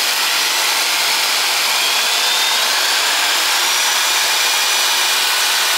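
Rockwell 4150J1 3/8-inch variable-speed reversible electric drill running unloaded, its motor whine rising in pitch about two seconds in as the trigger speed control is squeezed further, then holding steady.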